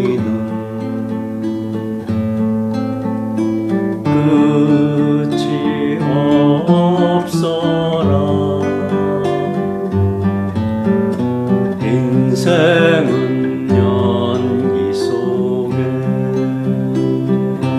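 Acoustic guitar playing a song, strumming chords under a melody line.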